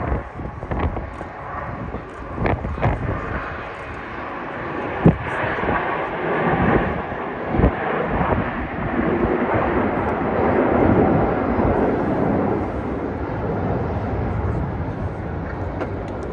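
Display jet aircraft passing, their engine noise swelling to a peak about ten to twelve seconds in. A few sharp knocks on the microphone come in the first several seconds.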